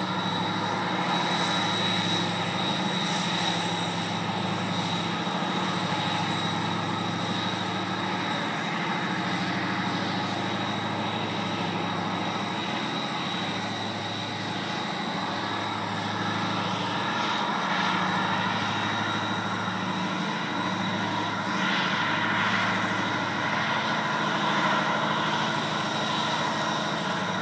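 Towboat's diesel engines pushing a barge tow upriver: a loud, steady, low engine drone.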